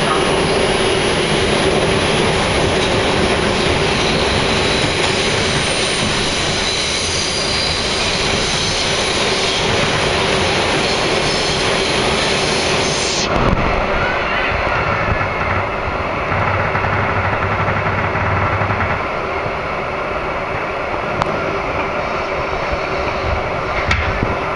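Subway train running, heard from inside the car: a steady, loud rumble and hiss of wheels on rail with a held whine. About halfway through, the high hiss drops away sharply.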